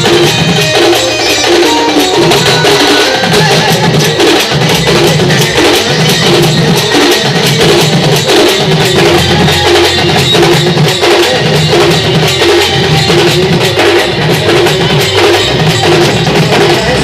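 Sambalpuri folk-song music, an instrumental stretch with busy percussion over a steady beat and no singing.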